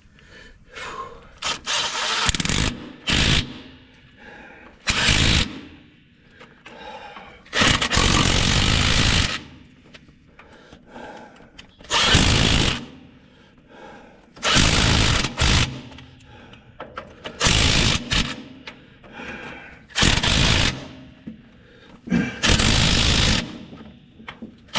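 Power wrench tightening bolts in about eight short bursts, each about a second long, with pauses of two to three seconds between them.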